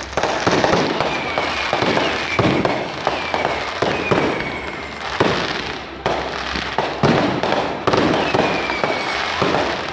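Fireworks going off in quick succession: a dense, irregular run of bangs and crackles, with several short whistles that slide down in pitch.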